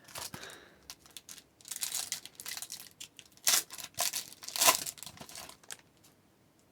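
Paper-and-foil wrapper of a hockey card pack being torn open and crinkled by hand, in several short rustling bursts that die away near the end.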